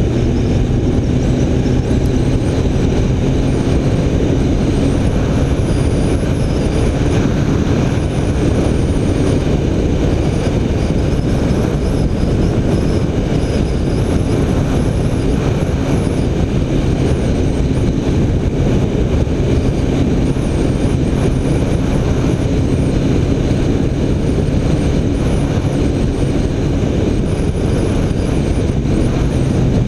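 BMW K1300 R's inline-four engine running at a steady cruise, its note changing only slightly in pitch, under a heavy rush of wind noise.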